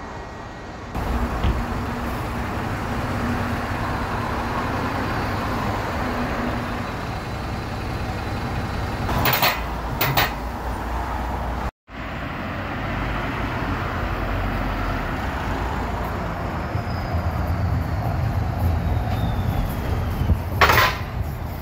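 Solaris Urbino 12 city bus running at a stop, a steady engine hum, with short sharp hisses of compressed air twice just before the middle and twice near the end, typical of the air brakes and doors.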